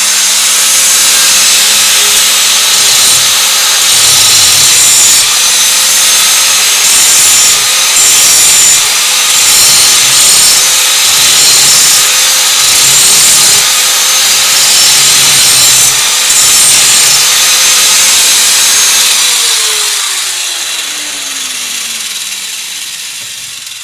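Electric grinder grinding the cutting edge of a steel lawnmower mulching blade, the noise rising and dipping with each pass of the blade. Near the end it is switched off and its motor winds down, the hum falling in pitch and fading.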